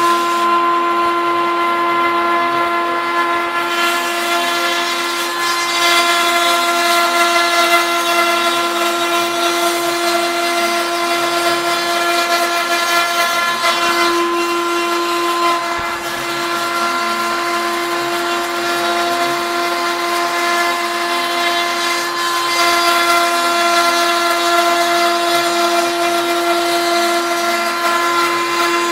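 Homemade CNC router's spindle running with a steady high whine as it cuts the outer surface of an RC airplane wing; the tone changes slightly about halfway through.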